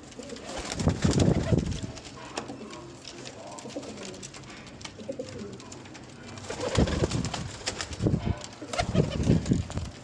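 Domestic pigeons cooing, in loud bouts about a second in and again through the last three seconds, with quieter cooing in between.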